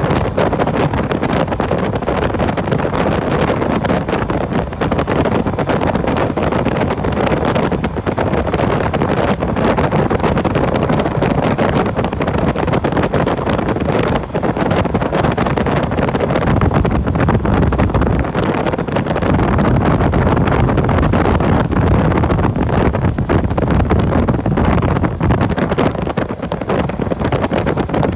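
Wind rushing over the microphone of a moving motorbike, with the bike's engine and road noise rumbling underneath. The low rumble grows heavier partway through.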